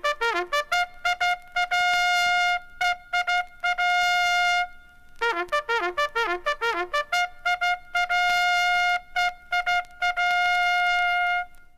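Bugle call: a single bugle plays quick tongued notes leaping among a few pitches of the bugle's natural series, then holds a long high note, in two similar phrases. It stops near the end.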